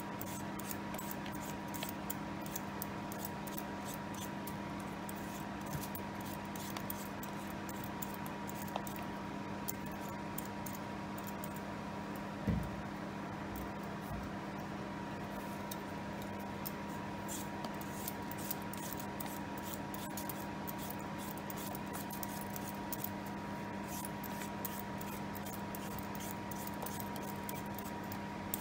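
Vegetable peeler scraping the skin off a potato in short, repeated strokes, over a steady background hum. There is one dull thump about halfway through.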